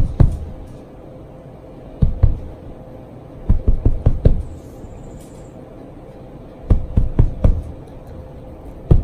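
A hand patting a mattress through its bedspread: clusters of quick dull thumps, two to six pats at a time, with pauses between, patting to call a dog over.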